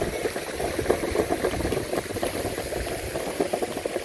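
Surfskate wheels rolling over rough pavement: a steady, dense crackling rumble.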